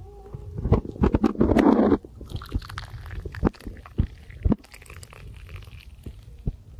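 Tea being poured from a pan into a glass tumbler. About a second in there is a loud scraping rustle, and sharp knocks of the pan and strainer are heard several times.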